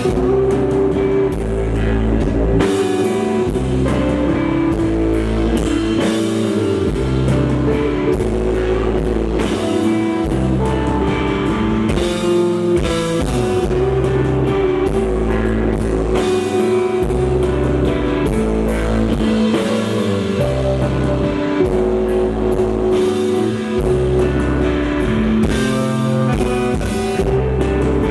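A live rock band playing: electric guitar over drum kit, with no singing.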